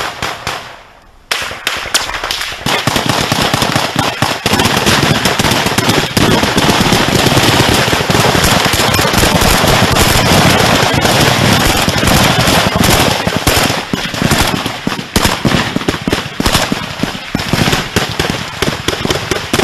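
Dense, rapid gunfire from Kalashnikov-pattern assault rifles. The shots start about a second in, run on almost without a break, and become a little more broken near the end.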